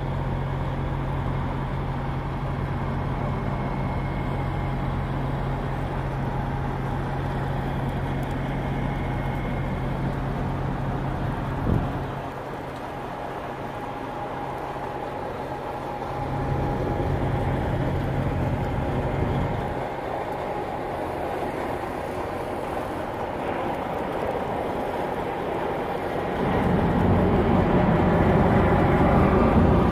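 Diesel semi-truck engine running at low speed while a tractor-trailer manoeuvres, with one sharp click about twelve seconds in. The engine hum falls away after the click, comes back, and grows louder near the end.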